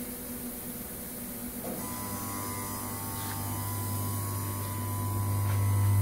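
MPM AP36 solder-paste stencil printer running through its reset cycle: a low motor hum with a faint higher whine comes in about two seconds in and grows steadily louder.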